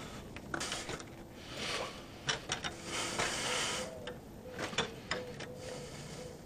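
Coaxial cable being pulled through gloved hands and dragged against a stucco wall: several scraping pulls, the longest about three seconds in, with a few sharp clicks of handling.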